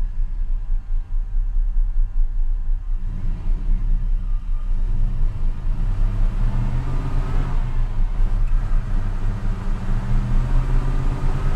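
Old pickup truck engine running as it drives off, a steady low rumble that grows louder a few seconds in and rises in pitch as it speeds up around the middle.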